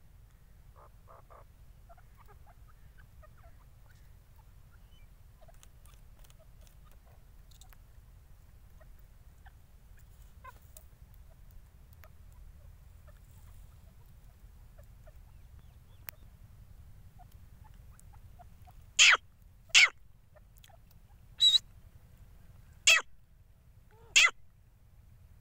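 Grey francolin giving five short, loud calls spread over the last six seconds, after a long stretch of faint background.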